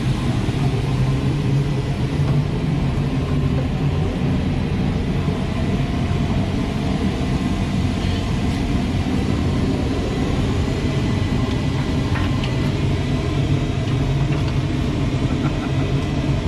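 Steady low engine drone with a faint high tone over it, running evenly without rising or falling.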